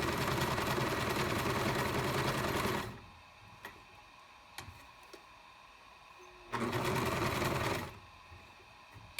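Singer 5137 sewing machine, an all-metal-geared model from the 1980s, stitching a multi-zigzag stitch at speed, with a steady rhythmic run that stops about three seconds in. A few light clicks follow, then a second short burst of sewing of about a second.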